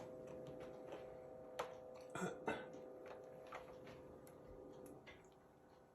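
Faint light taps and clicks from a pet playing on top of a refrigerator, a few coming in a quick cluster about two seconds in, over a steady low hum.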